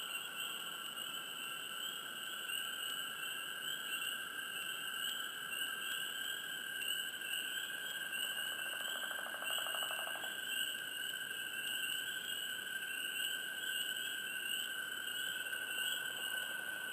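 Swamp chorus of frogs chirping close, a steady shrill trilling that never lets up, with a lower, rapid pulsed trill from a nearer frog for about two seconds midway.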